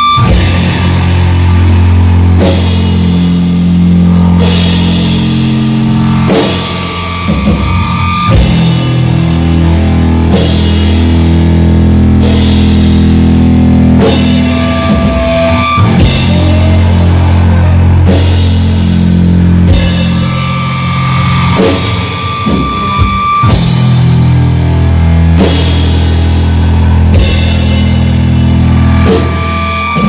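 Live funeral doom metal band playing: distorted electric guitar holding slow, low chords over drums, with a drum and cymbal hit about every two seconds.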